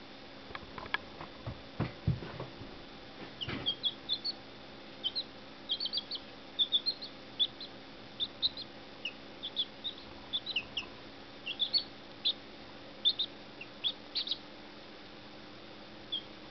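Young chicks peeping: many short, high cheeps in quick irregular runs. A few low thumps come in the first few seconds.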